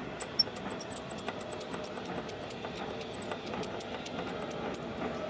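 Rapid high-pitched chirping, about five short squeaks a second over a steady low engine background, stopping near the end. It is an abnormal noise from around the clutch release of a Mazda Eunos Roadster (MX-5).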